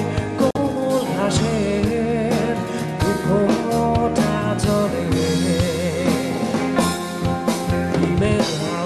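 Rock band playing live: a male lead vocal sung over electric guitars, bass guitar and a drum kit.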